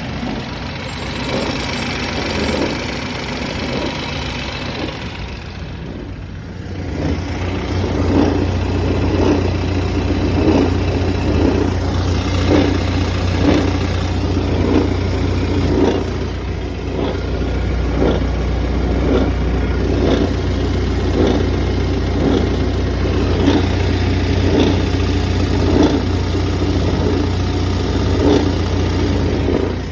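BMW 330e plug-in hybrid's four-cylinder petrol engine running at around 900 rpm with a strange rhythmic noise from the transmission area: a pulsing that comes back about every 0.7 seconds over a steady low hum. The noise is present only near 900 rpm and goes away when revved past it. A brighter hiss in the first five seconds or so drops away.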